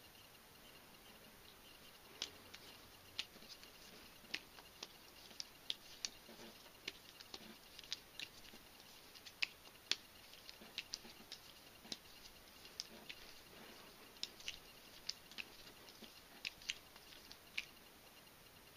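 A karambit knife clicking and tapping against the hand as it is flipped around the finger ring: a long run of light, sharp clicks, about two or three a second and irregularly spaced, starting about two seconds in.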